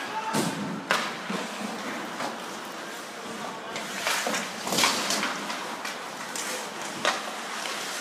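Ice hockey in play in a large, mostly empty rink: skates scraping on the ice, with several sharp knocks of sticks, puck and boards, echoing through the hall.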